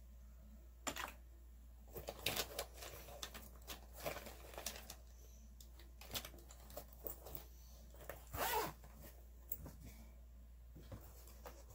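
Makeup items and plastic cases being handled and rummaged through in a clear plastic storage drawer: scattered light clicks and taps with short rustles, a longer rustle about eight and a half seconds in.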